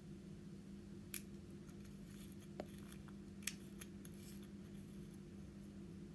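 Three sharp clicks and faint light crackles of makeup tools and containers being handled, over a steady low hum.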